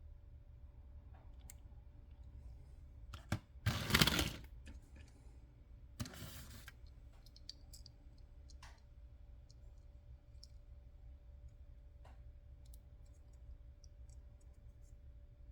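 Small clicks and taps from handling small diecast toy vehicles. Two louder, brief handling noises come about four and six seconds in.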